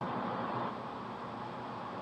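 Faint, steady outdoor background noise with no distinct events, a little louder for the first moment and then even.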